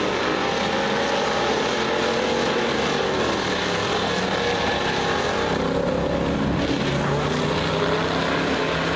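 Several dirt-track race cars running at speed around a clay oval: a steady mix of engine notes from several cars overlapping, their pitch rising and falling as the cars pass through the turn.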